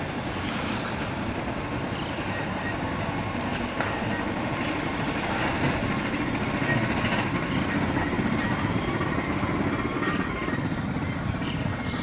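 Vintage Wengernalpbahn electric rack train with its red rotary-snowplough unit running past on the rack line, a steady mechanical running noise.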